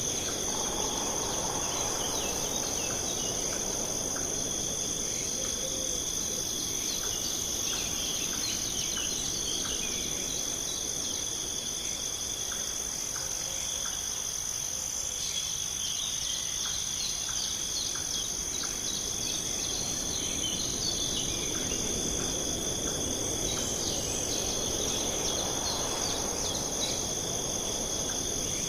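Nature ambience: a steady, high, continuous chorus of crickets and other insects, with small birds chirping here and there, over a low rushing background that swells near the start and again toward the end.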